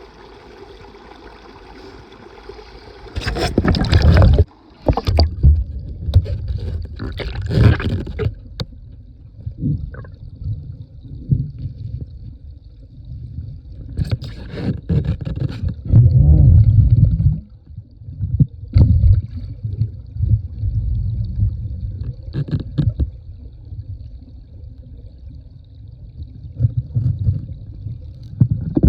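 Creek water swirling with a low rumble, broken by scattered clicks and knocks of stones shifted in the creek bed while sniping for gold, with several louder surges of water.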